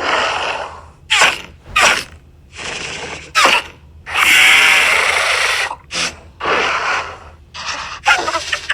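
Dinosaur sound effects from the drive-thru audio tour: a string of breathy snorts and hissing calls, short ones at first and a longer hiss about four seconds in.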